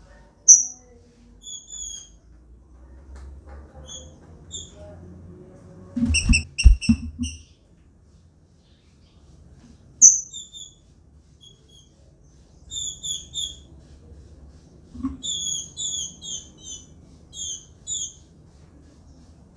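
Female green-winged saltator (trinca-ferro) giving short, high chip calls, mostly in quick clusters of two to six with pauses between. About six to seven seconds in, a few knocks come from the bird moving about on the wooden cage perches.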